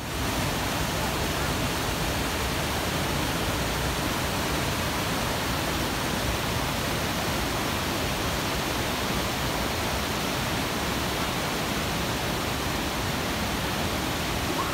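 Mountain waterfall and whitewater cascading over boulders: a steady, even rush of water.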